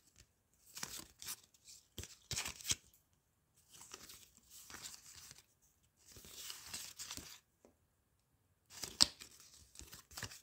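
Foil trading-card packets and cards being handled: short bursts of tearing and crinkling, each a second or so long with quiet gaps between, and a sharp snap about two seconds in and again near the end.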